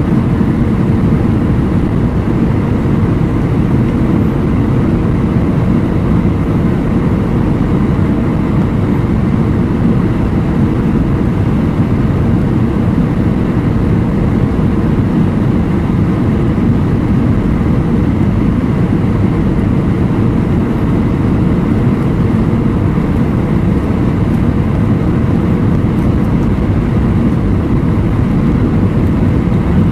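Steady cabin noise inside an Airbus A319-132, heard from a seat over the wing, made of airflow and the IAE V2500 turbofan engines on descent. It is strongest in the low range, with a faint steady hum on top.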